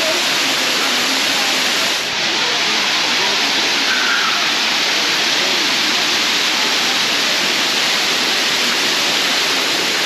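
Waterfall cascading over rock: a steady, loud rush of falling water, with a brief dip about two seconds in.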